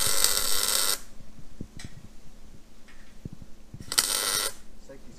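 Electric arc welding on a steel trailer frame: two short bursts of arc crackle, one about a second long at the start and a shorter one about four seconds in.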